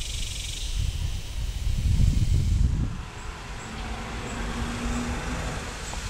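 Dassault Mirage 2000 fighter jets' SNECMA M53 engines running as the jets taxi, giving a steady rushing jet noise. A heavy low rumble dominates the first three seconds, then drops away and leaves an even rush with a faint steady whine.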